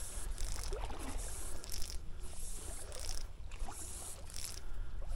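Wind rumbling on the microphone, with short bursts of hiss coming and going about every second.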